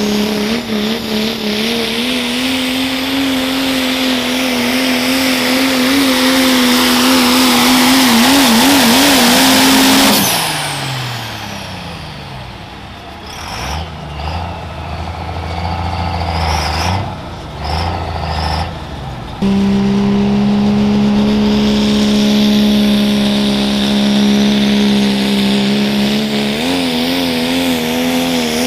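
Pro stock diesel pickup pulling trucks running at full throttle under load down the track. The first holds a steady high engine note that wavers near 8 s, then falls away about 10 s in as the pull ends, followed by quieter revs and blips; about 19 s in a second truck starts at full throttle, its note wobbling near the end.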